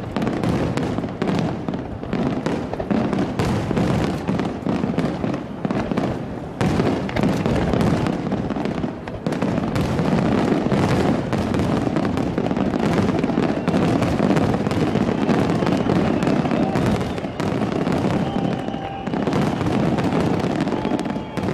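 Aerial fireworks display: a dense, nearly continuous barrage of shell bursts, booms and crackling, with brief lulls.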